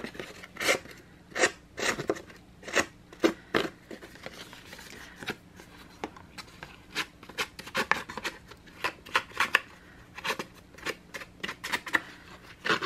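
Open scissor blades scraping along the edge of embossed cardstock in an uneven series of short, sharp strokes, roughing up and fraying the paper edge to distress it.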